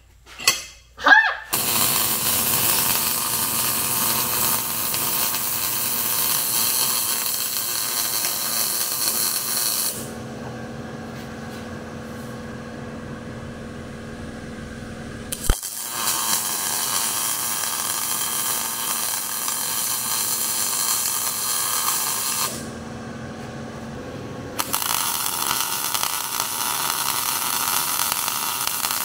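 A few metal clinks, then a MIG welder running with a steady crackling buzz as a steel sleeve is welded into the eye of a hydraulic cylinder rod. The welding stops twice, about ten seconds in and again near the end, leaving a low hum, and resumes after each pause, the first time just after a sharp click.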